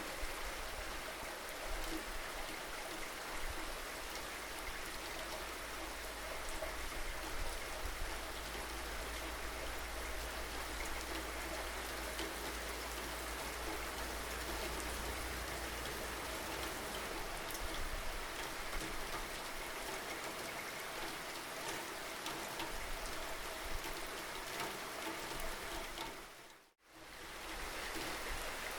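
Steady rain falling, with many separate close drop hits over the hiss. Near the end it fades out to silence for under a second and fades back in, an edit or loop seam in the recording.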